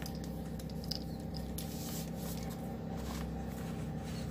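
Braided cord dog leash being handled: scattered light clicks and rustles over a steady low hum.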